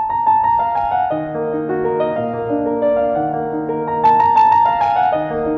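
Piano music: a melody of held, overlapping notes over soft chords.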